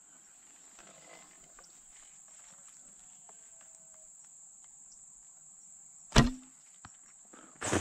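A Grozer Assyrian biocomposite recurve horse bow is shot: after a quiet hold at full draw, the string is loosed about six seconds in with a single sharp snap and a short low thrum as the arrow leaves. A steady high insect chirr runs underneath.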